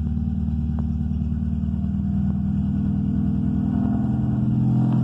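Volkswagen Gol engine running through a straight exhaust with no muffler, a steady low rumble at a fast idle, the revs creeping up slightly over the last second or so.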